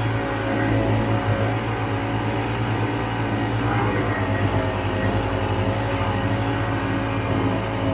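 Vintage Ski-Doo snowmobile's two-stroke engine running steadily while the sled is ridden through snow, its note wavering slightly with the throttle.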